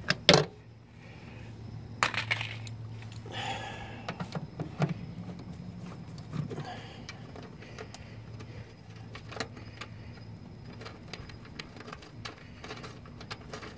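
Scattered clicks, knocks and small metallic rattles of hands and tools popping off trim to get at a car speaker, over a low steady hum.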